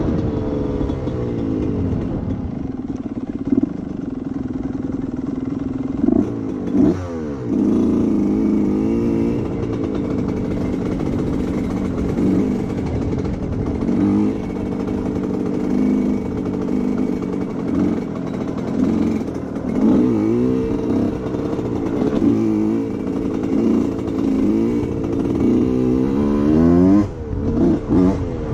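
1990 Suzuki RM125's single-cylinder two-stroke engine being ridden, its pitch rising and falling again and again as it is revved up and eased off.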